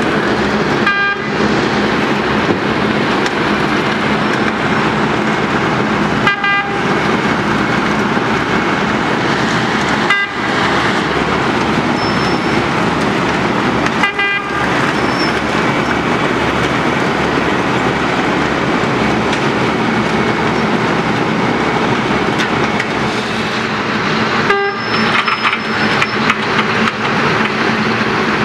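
Wirtgen W2200 cold milling machine at work: its diesel engine running under load and the milling drum grinding up the asphalt surface, a loud, steady din with a constant low hum.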